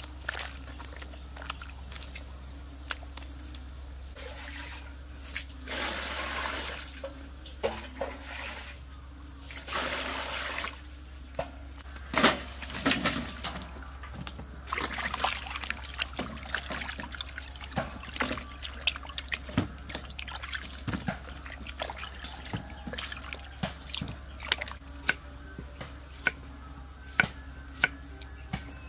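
Water splashing and trickling in a metal basin as vegetables are washed. In the second half, short sharp knocks of a knife cutting carrots on a wooden chopping board.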